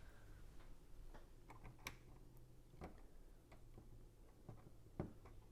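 Several faint, irregular clicks and taps of plastic Lego pieces being handled and pressed together, the sharpest about two seconds in, over a faint steady low hum.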